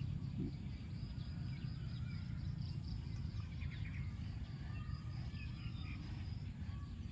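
Outdoor background: a steady low rumble with faint birds chirping and insects calling.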